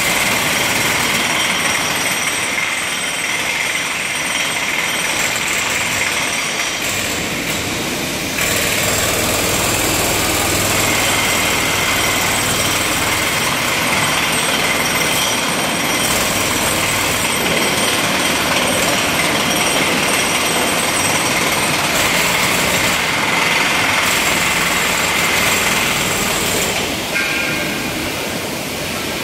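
Pneumatic chipping hammer breaking up concrete, running continuously; it gets louder about eight seconds in.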